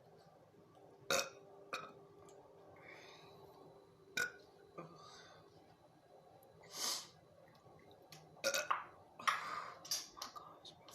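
A woman burping several times, short separate burps with pauses between them, the loudest run coming about eight to ten seconds in.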